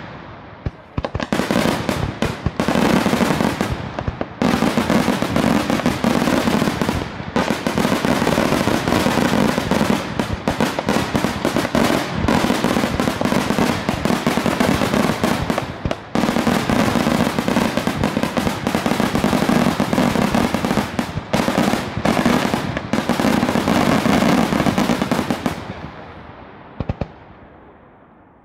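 Daytime fireworks: a dense, almost unbroken barrage of aerial shell bursts and firecracker reports, with a few brief lulls, thinning and fading out over the last few seconds.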